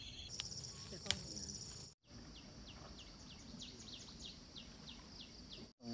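Summer cicadas buzzing steadily in a high, thin drone. After a brief cut about two seconds in, a short falling chirp repeats about three times a second over the drone.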